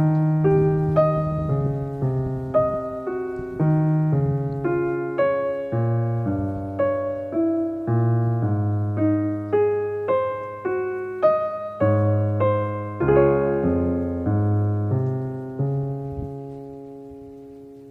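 Background solo piano music: a slow melody of struck notes over low bass notes, ending on a held chord that fades away.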